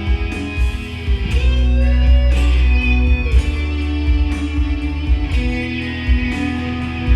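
Music led by electric guitar over a heavy, pulsing bass.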